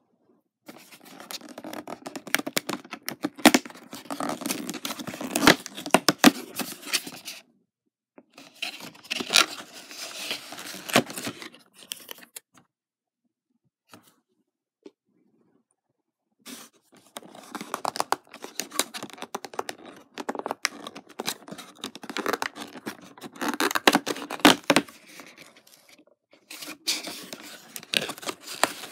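Cardboard advent calendar doors being torn open, with scratchy tearing and scraping of cardboard under fingers. It comes in four bursts with short pauses between.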